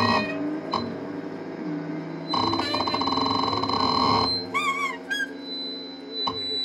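Live free-improvised noise music: a dense wall of buzzing, squealing sustained tones, with a brighter held block in the middle followed by a wavering, warbling tone, and a few sharp hits from a drum kit played with mallets.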